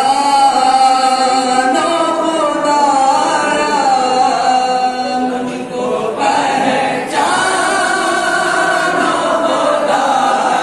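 A male reciter singing a noha, an Urdu mourning lament, in long held phrases with no instruments, and a group of men singing along with him in chorus. A new phrase begins about seven seconds in.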